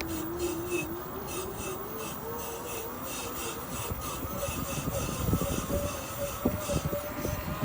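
A bike being ridden, with a whine that climbs slowly in pitch as it gathers speed. A rubbing tick repeats about three times a second, and low knocks come in from about five seconds in.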